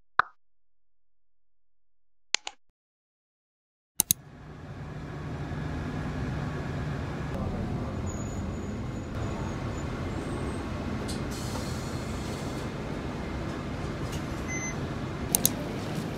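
Two short pops, then about four seconds in the steady low engine-and-road rumble of a bus interior fades in and runs on, with a pair of clicks near the end.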